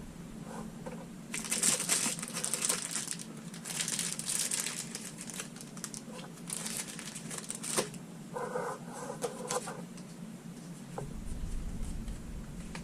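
Foil wrapper of a Pokémon booster pack crinkling and tearing in several bursts as it is opened.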